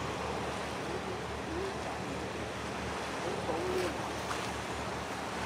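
Steady wind rumble on the microphone over the wash of harbour water along a passing tanker's hull, with a low steady hum underneath. A few faint, short wavering tones come about a second and a half and three and a half seconds in.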